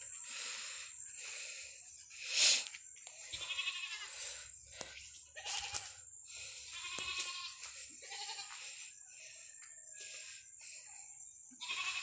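Goats bleating several times in short, wavering calls, with one short loud burst of noise about two and a half seconds in.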